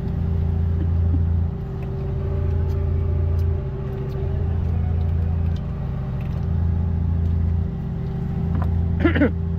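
A fishing boat's engine running steadily, a low drone that swells and dips about every couple of seconds.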